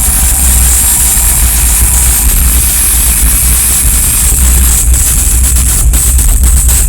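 Industrial noise music played live through a loud PA: a heavy droning bass with a hiss of noise on top, and a fast pulsing beat setting in a little past halfway.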